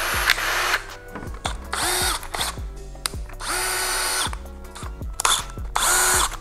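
Ryobi 18V cordless right-angle drill run in about four short bursts on the trigger. Each time the motor spins up with a whine and winds down as the trigger is released.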